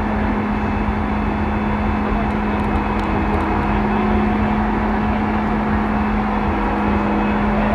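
A steady engine drone with a constant low hum, running evenly over a continuous outdoor rumble.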